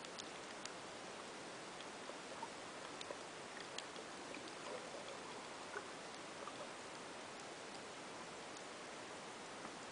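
Underwater ambience picked up by a camera submerged in the sea: an even hiss with scattered faint, irregular clicks and ticks.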